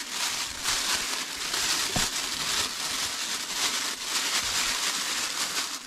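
Plastic oven bag crinkling and rustling as it is gripped and pulled open with kitchen tongs, with a faint click about two seconds in.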